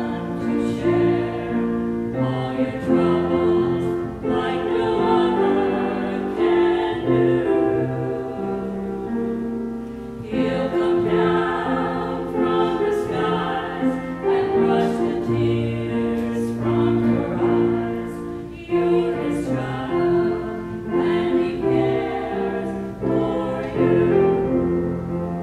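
Women's voices singing together in a slow song with piano accompaniment, phrases held on sustained notes.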